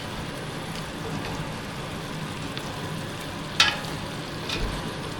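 Chicken pieces sizzling steadily in a pot in their own juices, with no water added. A sharp clink comes about three and a half seconds in, and a softer one a second later.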